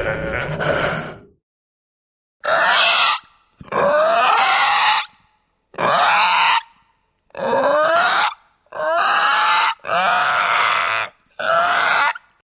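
Zombie sound effect: a series of about seven separate growling groans, each a second or so long with silence between them.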